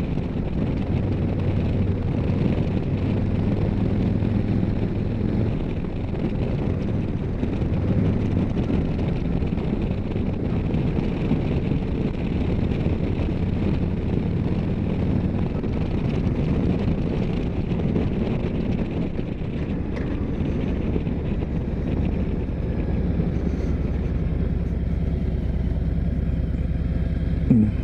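Harley-Davidson Street Glide's Milwaukee-Eight 107 V-twin engine running steadily while the bike is ridden, with road and wind noise. The engine note shifts in pitch a few times, with a short rise right at the end.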